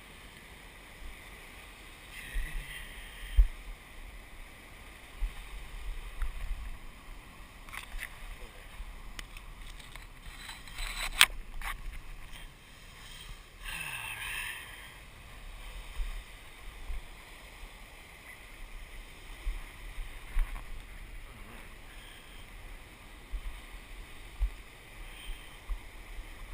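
Big ocean surf with wind gusting on the microphone, plus scattered knocks and bumps from the camera being handled on rocks.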